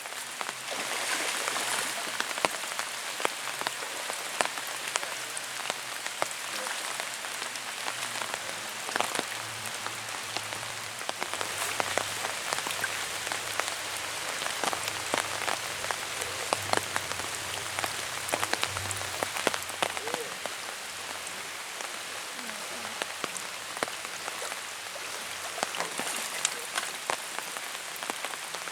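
Steady heavy rain falling, with many sharp taps of drops striking close by.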